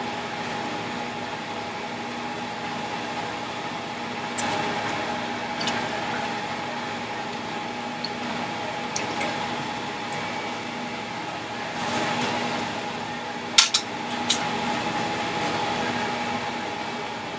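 Steady hum of a kitchen fan or appliance, holding a few constant tones, with a handful of short clicks and clinks from utensils and containers being handled, the loudest about two thirds of the way in.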